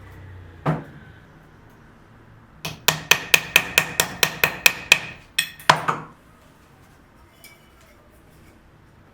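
Hammer tapping in a workshop: one knock, then a quick run of about a dozen sharp, evenly spaced taps at roughly five a second, and two more taps near the end of the run.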